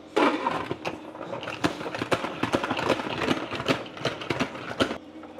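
Salad spinner spinning a load of wet cut Yukon Gold potato fries, a rattling whir with many clicks, to throw off water before the first fry. It starts just after the beginning and stops abruptly about five seconds in.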